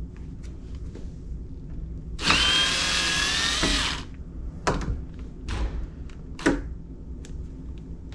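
Cordless drill-driver running for about two seconds, its motor whine rising and then holding, as it backs out a screw from the door's latch hardware. A few short clicks and knocks of the hardware being handled follow.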